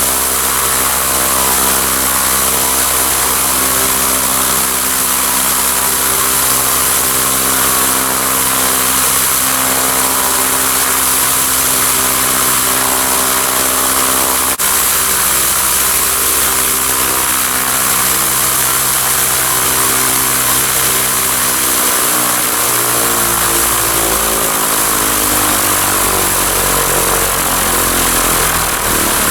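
Light aircraft's propeller piston engine running during a ground run, with a steady hiss from the propeller over it. About two thirds of the way through, the engine speed changes and its pitch shifts and glides.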